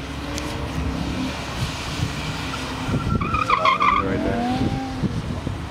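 BMW sedan drifting on a wet skid pad: the engine running under throttle as the car slides, with a brief high tyre squeal about three seconds in and the engine note rising and falling just after.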